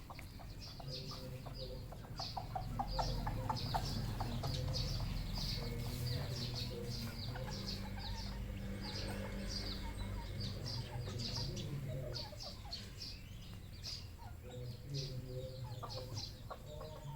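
Red junglefowl clucking, with a dense run of short, high-pitched chirps and peeps throughout and a low rumble underneath.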